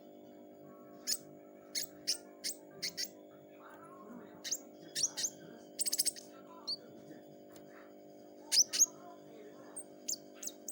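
Pentis raja flowerpecker calling: short, sharp, high-pitched chirps at irregular intervals, some singly and some in quick runs of two to four.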